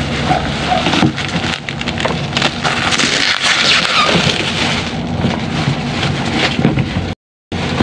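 Clear plastic wrapping crinkling and rustling as a plastic spin-mop bucket is pulled out of its packaging and handled, with small knocks of plastic. The crinkling is loudest about three to four seconds in, and the sound cuts out briefly just before the end.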